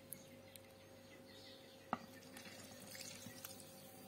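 Faint trickle of the frothy proofed yeast mixture (warm water, sugar and yeast) being poured from a cup onto dough in a glass bowl, with one sharp light click about two seconds in.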